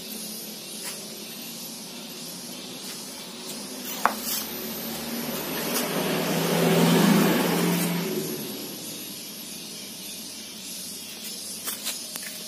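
A vehicle engine passing by: it grows louder to a peak about seven seconds in, then fades away, over a steady background hiss. A single sharp click comes about four seconds in.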